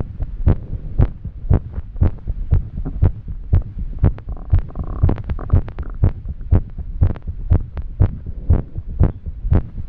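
A woman's heart beating fast after exercise, about two beats a second, with the beats bunching closer and less evenly around the middle: the irregular, racing rhythm of an arrhythmia.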